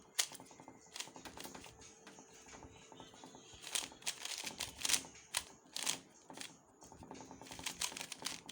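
A 3x3 puzzle cube being turned quickly during a solve: rapid plastic clicking and clattering of the layers in irregular flurries, busiest about four to five seconds in and again near the end.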